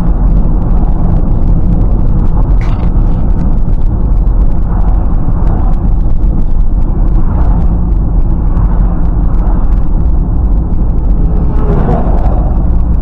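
Loud, steady low rumble of a car driving along the road, as heard by a dashcam inside the cabin: tyre and road noise coming through the body and windshield. A brief click comes about two and a half seconds in, and a truck passing close alongside swells the noise near the end.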